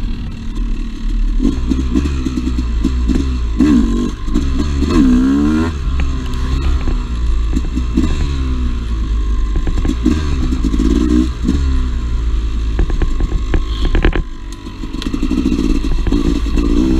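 Two-stroke dirt bike engine running under load on a trail, its pitch rising and falling again and again as the throttle is worked, with scattered clattering knocks throughout. The engine briefly drops off about 14 seconds in, then picks up again.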